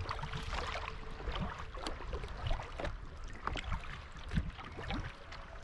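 Sea kayak paddling: small splashes and drips of water off the paddle blades and water lapping against the hull, irregular and ongoing.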